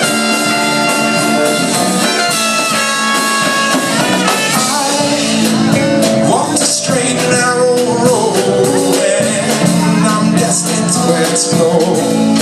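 Live band playing a mostly instrumental stretch of a song, loud and steady.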